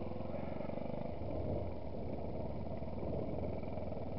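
Yamaha WR's single-cylinder four-stroke engine running steadily at low revs as the bike rolls slowly along a dirt lane, a fast even low putter with no revving.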